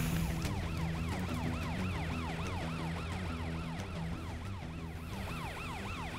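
Cartoon police car siren wailing in quick rising-and-falling sweeps, about three a second, over background music. A hiss of water spray cuts off about half a second in.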